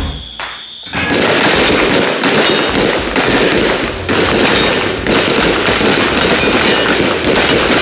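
Rapid gunfire: many shots in quick succession running together, starting about a second in.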